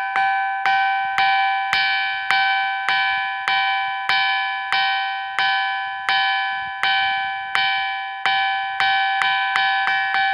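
Ringing stone struck again and again with another stone, each strike giving a clear bell-like ring of several tones that fades before the next. About two strikes a second, quickening near the end.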